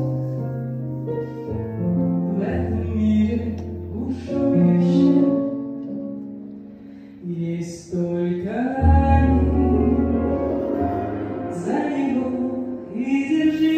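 A woman singing lead with a live band, over a sustained bass line that moves to a new note every few seconds.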